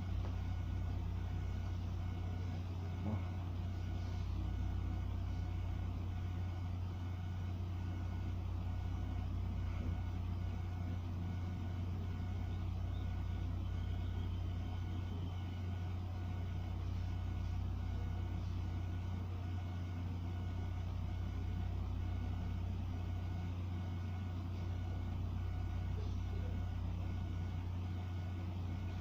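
Steady low hum, like a running machine, with a slow pulse in its lowest part about every four seconds.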